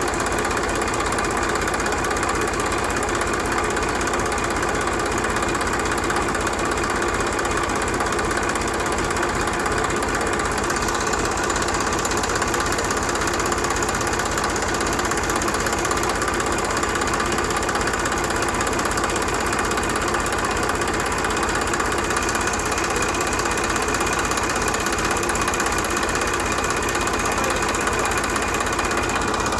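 A tractor engine running steadily at a constant speed for the whole stretch, with a fast, even chugging.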